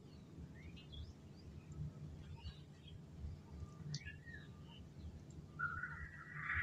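Faint, scattered chirps of small birds over a steady low hum, with a louder sound lasting about a second near the end.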